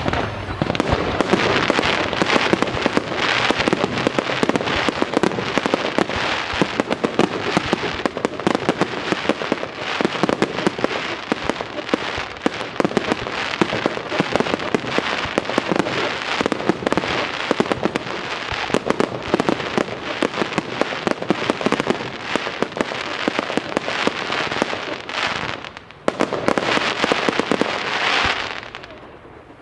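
Fireworks finale barrage: a dense run of overlapping bursts and crackling shells. It dips briefly near the end, resumes, then dies away just before the close.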